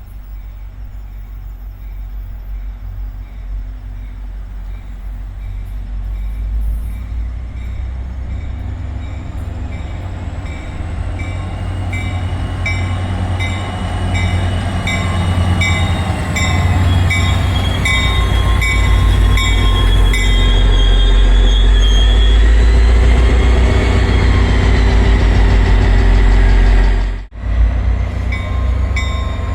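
Passenger train approaching and passing close by, its low rumble growing steadily louder to a peak near the end, with wheel squeal and a faint sound repeating at a steady rhythm. The sound drops out for a moment shortly before the end.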